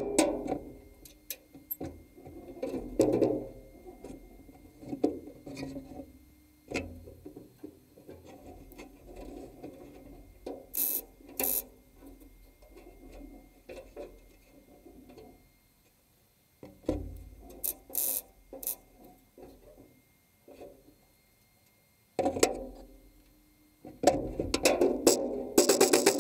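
Scattered light knocks, clicks and rustles from hands and gloves working a steel repair panel into place against the bulkhead. Background music with a percussive beat comes back near the end.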